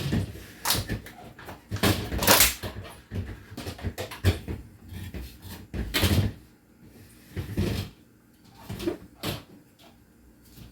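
Refrigerator shelves and drawers being lifted, slid and set into their brackets: a string of irregular knocks and clatters, loudest about two and six seconds in.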